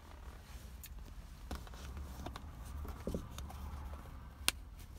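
Handling noise from a self-inflating camping mat: faint fabric rustling and scattered small clicks, with one sharp click near the end as its air valve is closed.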